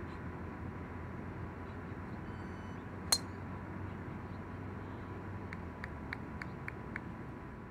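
Golf driver striking a ball off the tee: one sharp, loud crack about three seconds in, over steady outdoor background noise. Near the end, a quick run of about six short high chirps or clicks.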